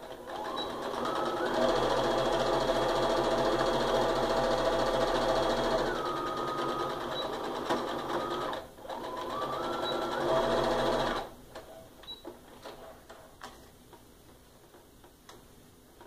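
Electric sewing machine stitching a seam: the motor speeds up, runs steadily, slows, stops briefly about nine seconds in, then runs again for about two seconds before stopping. Faint clicks of handling follow.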